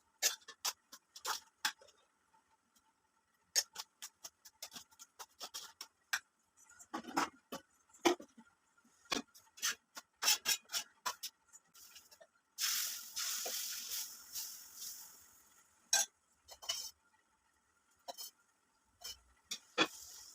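Kitchen utensils clinking and knocking: a spoon and vessels tapped and set down in a string of sharp clicks. About two-thirds of the way through comes a burst of hiss that fades over a couple of seconds.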